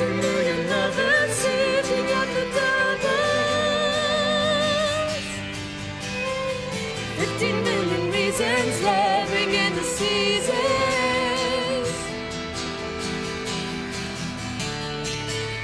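Acoustic band music from violin, accordion and acoustic guitar, with a voice singing long held notes with vibrato. The music gets softer about twelve seconds in.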